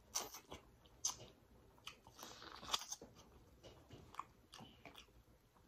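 Biting into and chewing boiled corn on the cob: a few sharp crunches as kernels are bitten off, the loudest near three seconds in, then quieter chewing.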